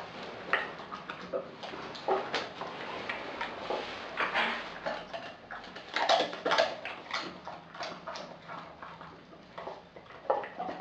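Australian Kelpie eating raw meat from a glass bowl: irregular chewing and wet smacking, with the loudest bites about six seconds in.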